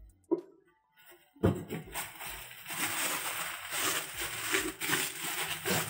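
Bubble wrap rustling and crinkling as it is pulled open by hand. There is a knock near the start, then a short lull, then steady crackling from about a second and a half in.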